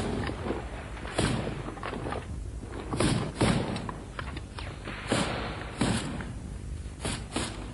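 Assault rifles firing irregular single shots, about seven sharp reports, some in quick pairs.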